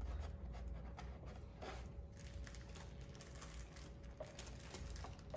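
Faint scattered clicks and scrapes of small plastic spoons, chocolate molds and packets being handled, over a low steady room hum.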